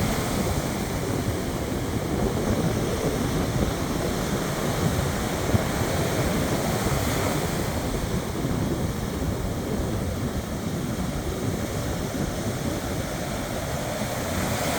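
Ocean surf: waves washing onto the shore in a steady rushing wash that swells and eases a little.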